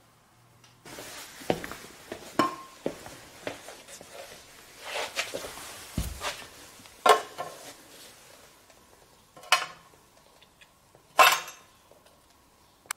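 Broken snow globe and its shards on a hard floor: a string of separate sharp clinks and knocks as the pieces are handled and picked up, the loudest about seven and eleven seconds in, with one low thud about six seconds in.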